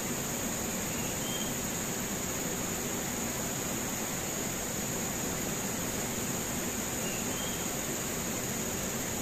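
Rushing water of a fast, swollen river, a steady even noise, with a constant high insect drone over it. A short high chirp comes twice, about a second in and about seven seconds in.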